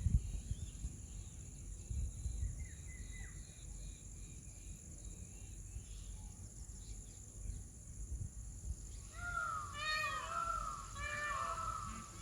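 Peacocks (Indian peafowl) calling: from about nine seconds in, a run of loud, arching, nasal calls repeats several times in quick succession. Before that there are only faint bird chirps over a steady outdoor background.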